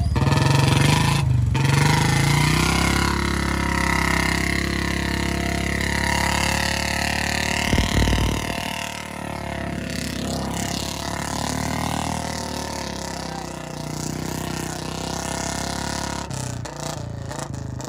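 Royal Enfield Bullet single-cylinder motorcycle engine running and revving as the bike is ridden through shallow muddy water, with a short low thump about eight seconds in.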